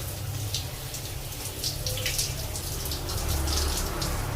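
Water splashing and dripping, with many small sharp splashes over a low steady hum, as from a running tap during a wash.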